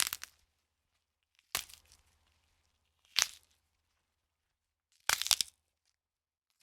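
Bone-cracking sound effect: four short, crunchy cracks spaced a second and a half to two seconds apart, with silence between them. The last crack is longer and made of several quick snaps.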